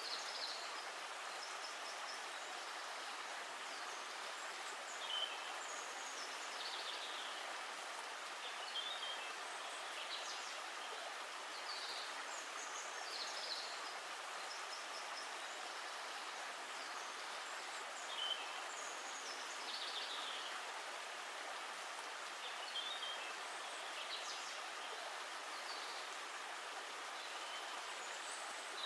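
Steady rush of running water with short high bird chirps every second or two.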